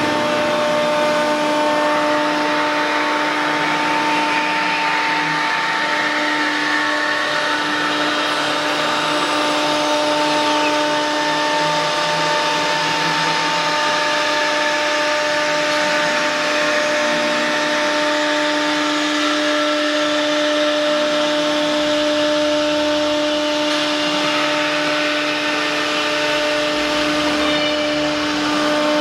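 CNC router spindle running with a steady, high-pitched hum and a hissing cutting noise over it as the router machines a workpiece.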